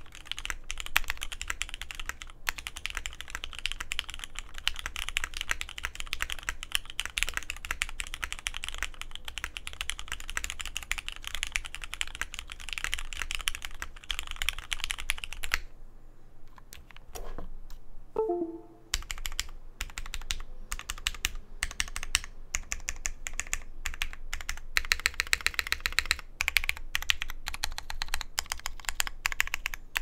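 Mechanical keyboard typing on a top-mount Matrix 2.0 Add with an aluminum plate, retooled Cherry MX Black linear switches lightly lubed with Krytox 205g0, GMK keycaps and Durock stabilizers. The keystrokes come quickly and evenly, with a pause of about three seconds around the middle before the typing resumes.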